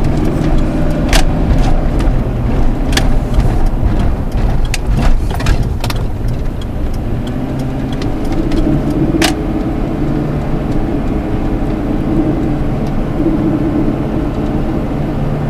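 Ford F-150's 5.4-litre V8 pulling under load up a hill, heard from inside the cab, with an unidentified rattle that comes in around 2100 rpm under load and grows stronger about halfway through. A few sharp clicks along the way.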